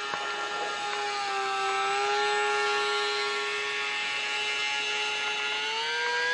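Electric motor and propeller of a ParkZone Icon 5 ultra-micro RC flying boat running with a steady high whine, its pitch dipping slightly about a second in and rising near the end as the throttle changes.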